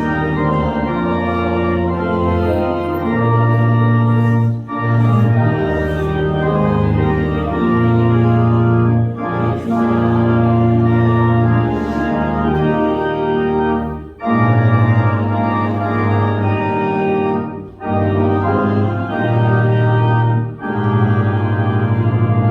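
Organ playing slow, sustained chords in phrases, with short breaks between the phrases.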